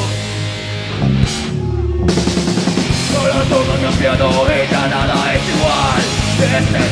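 Metal band playing live: pounding drums and distorted electric guitars. About a second in, the band drops out briefly, leaving a held low bass note, then comes back in at full force.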